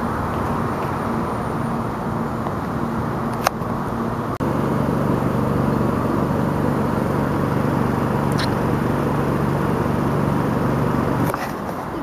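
Steady low mechanical drone of running machinery, with a constant low hum under an even wash of outdoor noise. A single sharp click comes about three and a half seconds in.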